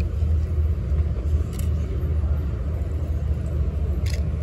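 Steady low background rumble, with two faint clicks.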